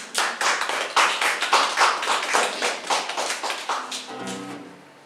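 Small audience applauding, many separate hand claps that die away about four seconds in, with a brief voice near the end.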